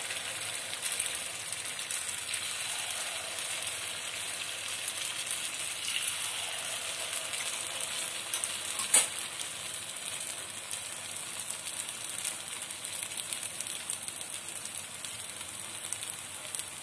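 Ragi kuzhi paniyaram batter frying in hot oil in the cups of a paniyaram pan on a low flame: a steady sizzle with fine crackling throughout. A single sharp click comes about nine seconds in.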